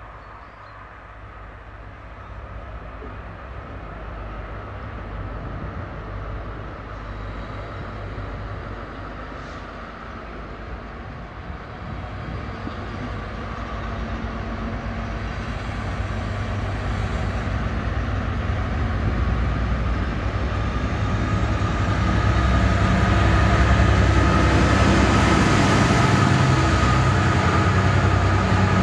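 Freight train approaching from a distance and passing close by, its locomotive and wagons rumbling on the rails. It grows steadily louder over twenty seconds or so and is loudest in the last few seconds as the wagons run past.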